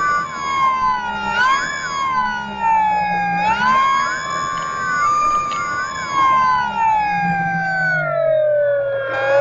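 Electric motor and propeller of an FMS Cessna 182 RC model plane whining steadily, heard from the onboard camera. The pitch rises and falls with the throttle and sags lowest near the end before climbing again.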